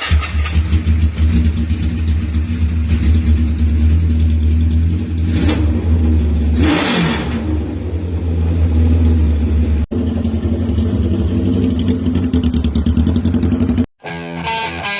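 Kawasaki KZ650 chopper's four-cylinder engine running loudly, with a brief swing in pitch about halfway through and a short break at about ten seconds. It cuts off shortly before the end, where guitar music begins.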